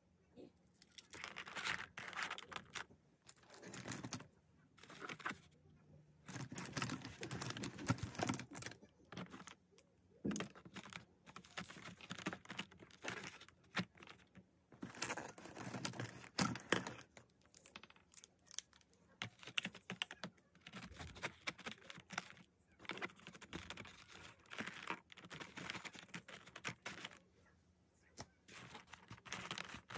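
Pens being slid into and out of the pockets of a leather pen case: leather rubbing, pen clips and keychain charms clicking and jangling, in short irregular bouts of handling noise with brief pauses between.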